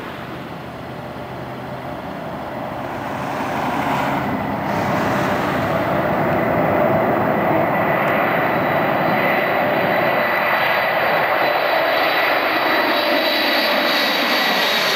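Boeing 747's four turbofan jet engines at takeoff power during a touch-and-go, a wide jet noise with a steady high fan whine, growing louder over the first few seconds as the airliner climbs out toward the listener. Near the end it passes directly overhead and the pitch starts to drop.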